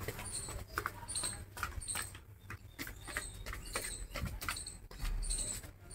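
Footsteps walking down, a string of light, irregular taps and clicks.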